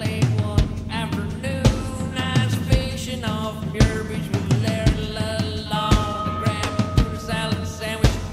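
Rock music with a singing voice and a steady drum beat, about one heavy hit a second.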